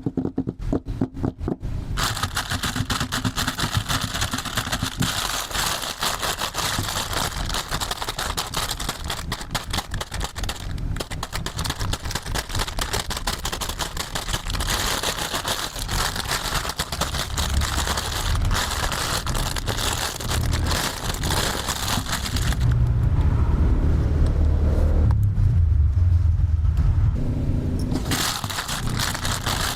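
Plastic toy tool set handled up close: a fast run of clicks, then a long stretch of crackling and scraping, and a low buzzing hum lasting about five seconds near the end.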